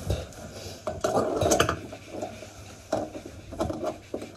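Metal grips clinking and scraping against the brass compression nut and isolation valve of a toilet's braided flexi supply hose as the nut is gripped and tightened. There is a loud cluster of clinks a little over a second in and scattered single clicks after it.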